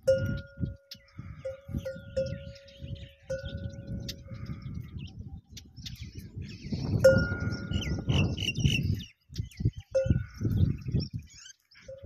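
A livestock bell clanking on and off, each stroke a single clear ringing tone that fades, over irregular low rumbling noise. Small birds chirp throughout, with a run of four quick notes about eight seconds in.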